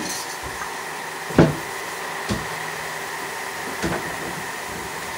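Three dull knocks in the wooden under-sink cabinet, the loudest about a second and a half in, over a steady low hum.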